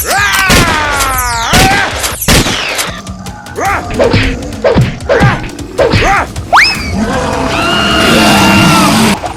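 Edited action sound effects over background music: falling swooping tones near the start, then a run of sharp hits and thuds, a quick rising chirp and a held tone near the end.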